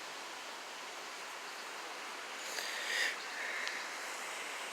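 Steady rushing hiss of flowing water, with a brief, slightly louder high-pitched sound about two and a half seconds in.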